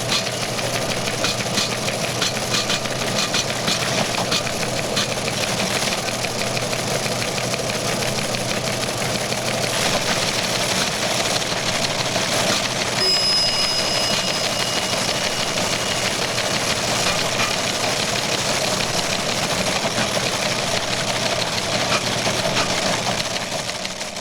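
Several teletype machines clattering away in a newsroom: a dense, fast mechanical chatter over a steady hum, with a brief high tone about halfway through.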